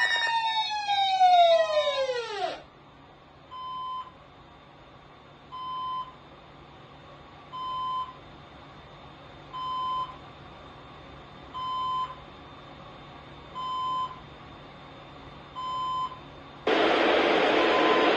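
Weather radio audio: a tone with a stack of overtones slides steadily down in pitch and cuts off about two and a half seconds in. Short beeps follow, about once every two seconds, seven in all, over faint hiss. Near the end a sudden loud hiss of static comes in.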